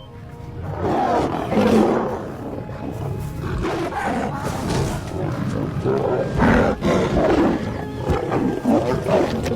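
Lions growling and roaring over a kill while feeding, rising in strength about a second in, with background music underneath.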